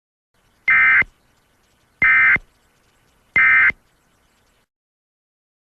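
Three short, identical bursts of Emergency Alert System SAME digital data tones, the end-of-message code that closes an EAS alert. Each burst lasts about a third of a second, and they come about a second and a third apart.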